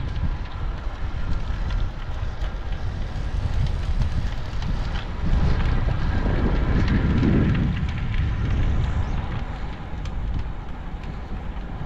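Wind buffeting the microphone of a camera on a moving road bike, a steady low rumble that swells for a couple of seconds around the middle.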